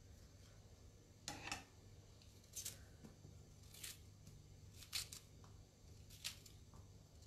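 Faint scraping strokes of a small kitchen knife cutting the fuzzy choke out of a halved artichoke, about one short stroke a second.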